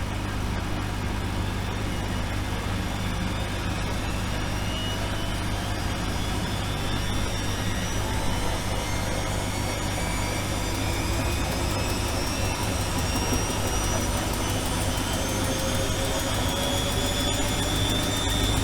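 Washing machine running: a steady low motor hum and drum noise, with a faint whine that rises slowly in pitch.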